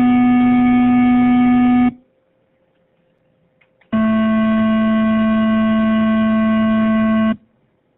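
Long, steady held musical notes with a reedy, horn-like tone. The first stops about two seconds in; after two seconds of near silence a slightly lower note holds for about three and a half seconds and then cuts off.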